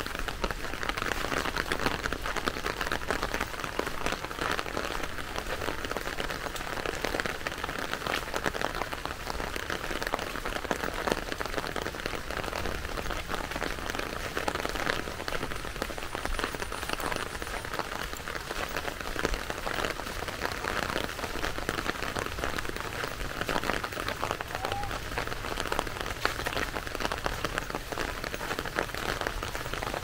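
Steady rain, with many close drops striking surfaces.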